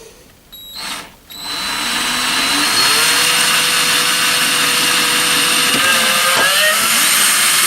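Electric drill starting up about a second and a half in, its motor whine rising to full speed, then running steadily, with a couple of brief dips in pitch near the end. It is drilling the holes for the drawer knobs.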